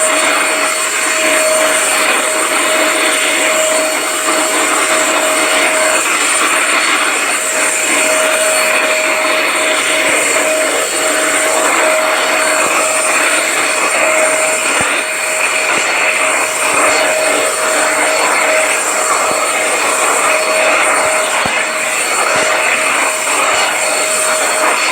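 Electric vacuum cleaner running steadily: an even rushing noise with a constant hum-like tone and a thin high whine, unchanging throughout.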